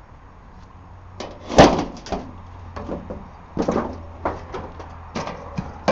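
A string of irregular knocks and thumps on wood, the loudest about one and a half seconds in, with smaller ones every half second to a second after.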